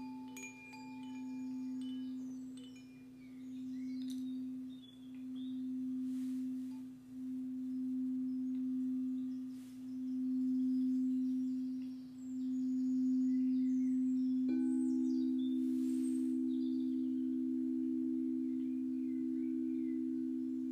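Singing bowl ringing in a sustained low tone that swells and fades about every two seconds. About fourteen seconds in, a second, slightly higher bowl tone joins and the two hold together, with faint high chime tinkles above.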